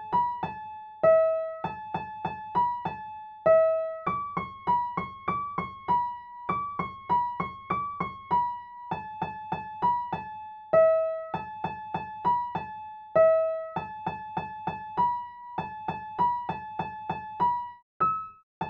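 Solo piano-like keyboard playing a lively melody one note at a time, with a few longer held lower notes, then pausing briefly near the end.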